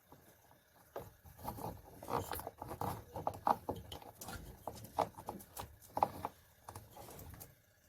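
Irregular clicks, knocks and rubbing from hands working the rubber drive belt back onto the pulleys of a tanquinho washing machine.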